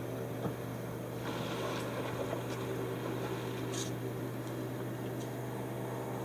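Boat engine running steadily, a constant low hum, with a few faint clicks.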